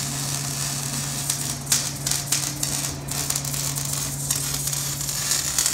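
Arc welding on a car's exhaust pipe, welding in an O2 sensor bung: a steady crackle and sizzle from the arc with irregular sharp pops, over a steady low hum.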